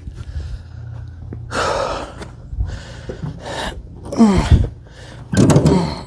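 A man gasping, panting and grunting with effort as he drags a heavy mower deck by hand, in about four loud breathy bursts, one of them a groan falling in pitch about four seconds in.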